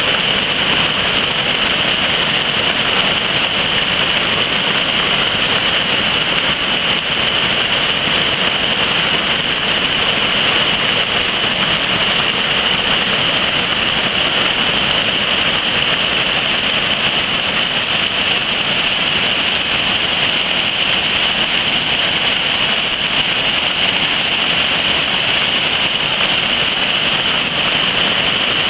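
River water pouring over a curved dam weir and churning into foaming rapids below: a loud, steady rush of falling water that never lets up.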